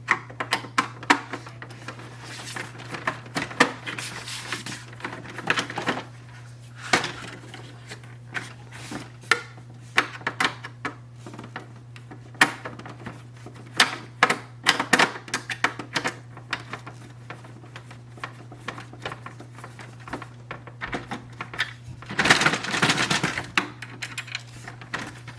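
Screwdriver turning out screws from an Epson inkjet printer's plastic housing, with scattered sharp clicks and knocks of plastic parts and screws being handled, and a longer scraping, rattling stretch near the end. A low steady hum runs underneath.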